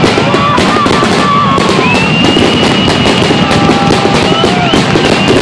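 Aerial fireworks display at close range: a rapid, continuous string of shell bursts and crackling, one bang on top of the next.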